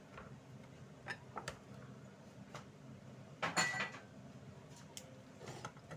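Light clinks and knocks of kitchenware being handled, a few single taps and one louder clatter with a short ring about three and a half seconds in.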